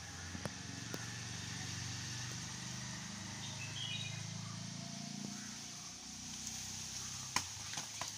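A passing motor vehicle's low engine hum swells and fades over several seconds, with a brief bird chirp in the middle. Near the end come a few sharp knocks as rose apples fall from the shaken tree onto the ground sheet.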